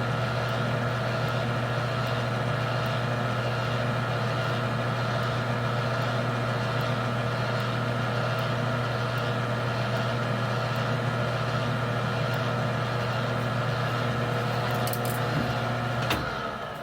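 Metal lathe running at a steady speed, its motor and gearing giving a constant hum, then switched off near the end and winding down.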